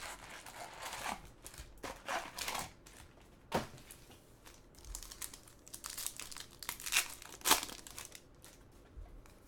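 Plastic trading-card packaging being torn open and crinkled by hand: irregular rustling, with sharper crackles about a third of the way in and twice near the end.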